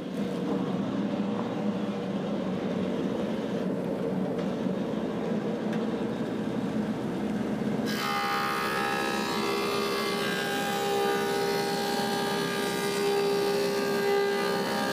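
Woodmaster 725 planer running as an elm slab is fed through for another pass. About eight seconds in, the sound changes suddenly to a brighter whine with several steady tones.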